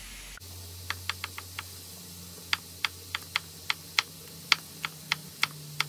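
Santoku knife chopping a red hot chili pepper on a wooden cutting board: sharp knocks of the blade on the board. A quick run of about five knocks starts about a second in, then a steadier run follows at about three a second.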